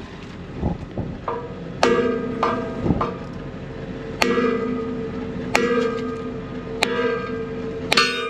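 Hammer blows against a rock wedged between the steel disc blades of a soil finisher's disc gang, each blow leaving the blades ringing like a bell. A few lighter knocks come first, then about six sharp strikes one to one and a half seconds apart. The blows are an attempt to knock loose the lodged rock.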